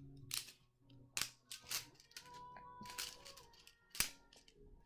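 Plastic magnetic building tiles clicking and clacking together as pieces are handled and snapped into place, several sharp irregular clicks with the loudest about four seconds in. Faint music plays underneath.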